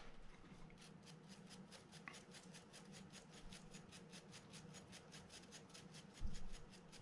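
Toothbrush bristles scrubbing old grease off a Shimano TLD 50LRS reel gear in quick, faint strokes, about six a second. A dull low bump a little after six seconds in is the loudest sound.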